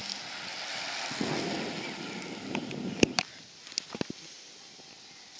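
Road racing bicycles passing close by: a rush of tyre and air noise with a low rumble that swells for a couple of seconds and then fades, followed by several sharp clicks.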